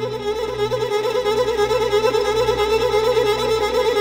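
Background music: a slow melody of long, wavering held notes, violin-like, over a low steady drone.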